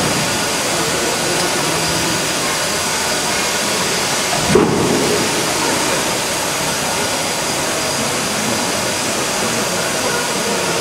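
LMS Fowler Class 3F 'Jinty' 0-6-0 tank engine venting steam in a loud, steady hiss. A single knock sounds about four and a half seconds in.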